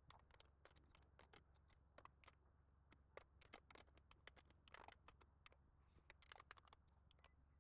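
Faint, irregular small clicks and taps of a 7mm spanner working the little bolts that hold the aircon vents to the radio fascia.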